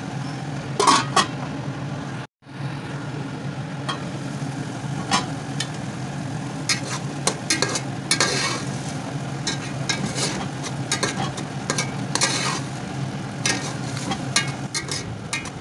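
Metal spatula stirring peas and tomatoes in a metal pot, clinking and scraping against the pot many times over the steady sizzle of the mixture cooking in oil and water. The sound cuts out for a moment about two seconds in.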